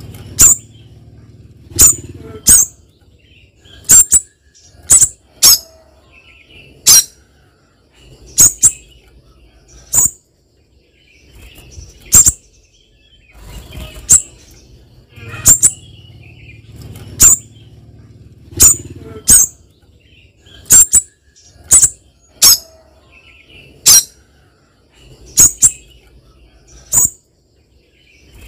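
Spiderhunters calling: loud, short, sharp high-pitched notes, some single and some in quick pairs, coming about once or twice a second with brief gaps. A faint low rumble sits underneath between the calls.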